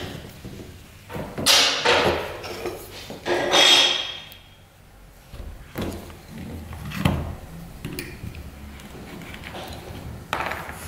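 Lead came and glass being handled on a wooden workbench: a few rough scraping knocks in the first four seconds, then lighter taps and clicks about once a second as the lead strip is fitted and trimmed with a lead knife.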